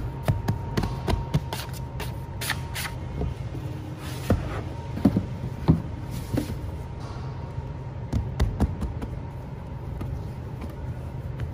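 A plastic dough tub being handled and turned over onto a floured wooden bench, with the dough worked out by hand: a scattered series of knocks and taps, over a steady low hum.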